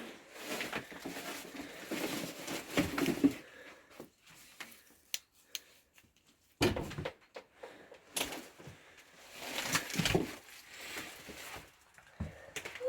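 Irregular knocks, clicks, scrapes and rustling of someone moving about and handling things in a cluttered, debris-strewn room, with two longer stretches of rustling near the start and about ten seconds in.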